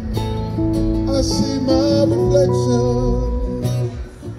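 Live electric guitar and acoustic guitar playing a slow song together, with a voice singing over them and a short lull near the end.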